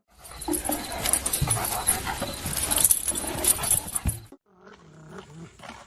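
Loud, rough noise with a few thumps for about four seconds, cutting off suddenly. After a short break, a dog whines in wavering, up-and-down tones.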